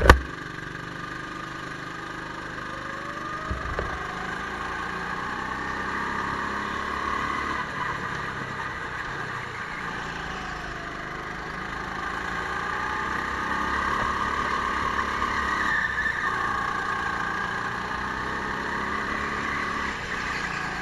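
Go-kart running on an indoor track, its motor pitch rising and falling with speed through the corners. A sharp knock comes right at the start.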